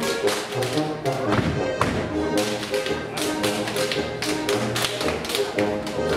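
Schuhplattler dancers slapping their thighs and shoe soles in a quick run of sharp slaps, several a second, over folk dance music.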